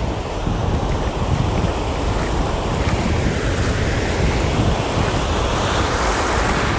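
Ocean surf washing around bare feet in shallow water, with wind buffeting the phone microphone in a steady low rumble.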